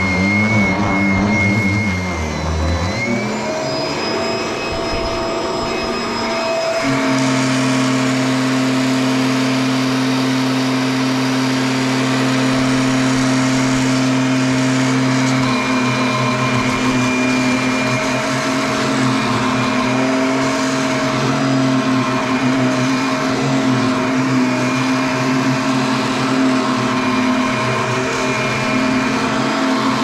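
Handheld vacuum cleaner running steadily, its motor note dipping and recovering about two to three seconds in and changing again about seven seconds in, then holding.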